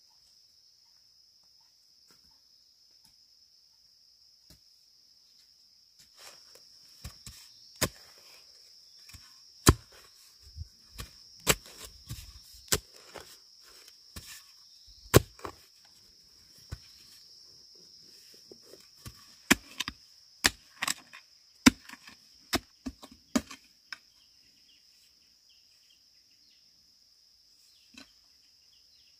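A tool striking bamboo in irregular sharp blows, about twenty of them, some much louder than others; they start about six seconds in and stop several seconds before the end. Under them runs a steady high-pitched insect drone.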